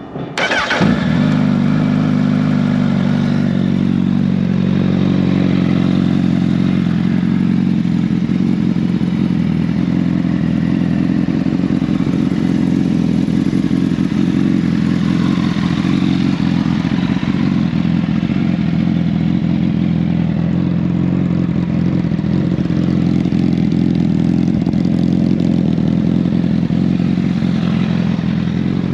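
A Honda CBR1000RR's inline-four engine, breathing through an M4 carbon-fibre slip-on exhaust, cranks and fires within the first second, then idles steadily.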